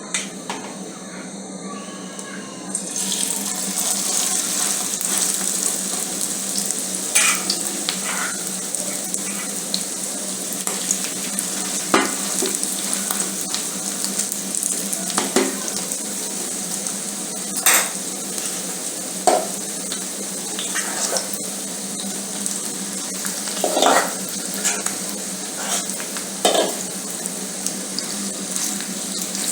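Cabbage and egg mixture sizzling in a frying pan. The sizzle grows louder about three seconds in, and a utensil knocks and scrapes against the pan now and then as the mixture is stirred.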